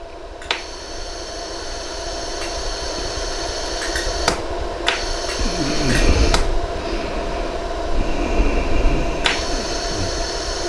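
Jewelry laser welder firing single pulses, heard as sharp clicks at irregular intervals about a second or more apart, over the steady hum of the machine. The pulses are fusing fine white gold wire onto a ring's worn prong tip.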